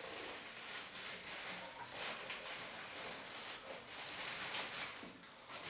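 Clear plastic packaging crinkling and rustling as it is handled and unwrapped, a dense run of small irregular crackles, with parts being taken out of a cardboard box.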